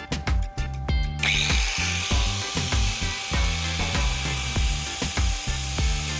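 A power tool starts running about a second in and keeps going with a steady high-pitched grinding noise, over background music with a steady beat.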